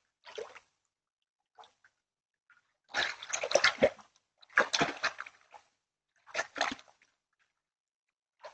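Water splashing and sloshing in a garden pond as an otter wrestles with a large carp: a couple of faint splashes, then three loud bouts of splashing, the first about three seconds in.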